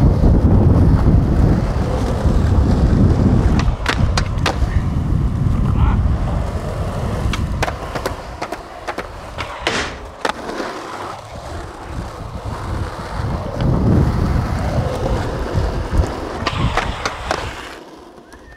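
Skateboard wheels rolling on asphalt with a heavy low rumble, broken by sharp clacks of the board popping and landing, and a scrape of the trucks grinding along a ledge about ten seconds in.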